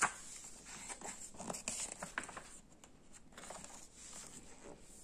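Paper rustling as a picture book's page is turned by hand and pressed flat, a string of short crinkles and scrapes.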